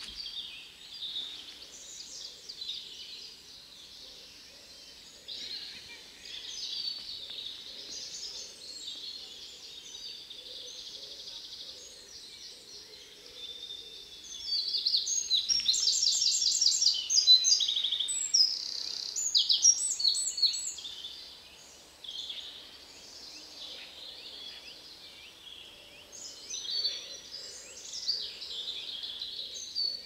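Songbirds singing in spring woodland, several birds overlapping. About halfway through, one bird sings loudly close by in fast, rapidly repeated trilled phrases for several seconds before the chorus falls back to quieter song.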